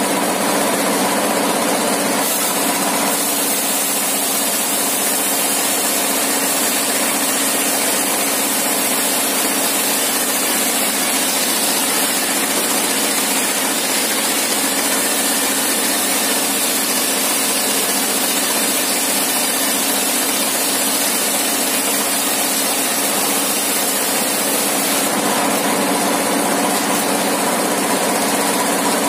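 Engine-driven sawmill circular saw with a 60-inch blade, ripping a plank into a thin one-inch board. The engine runs at a steady drone throughout, and a steady high hiss of the blade in the wood comes in about two seconds in and eases near the end.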